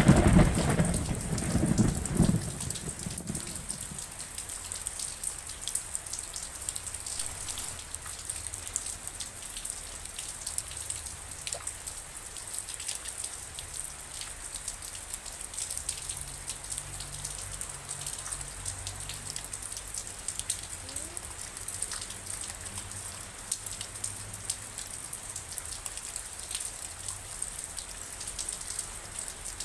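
Steady rain falling, with many small drops ticking on a surface. A loud low rumble of thunder dies away over the first few seconds.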